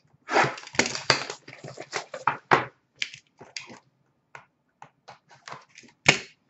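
Packaging of a sealed hockey card box being torn open and crinkled by hand: a dense run of irregular crackles for the first few seconds, then scattered ones, with one sharp loud crackle near the end.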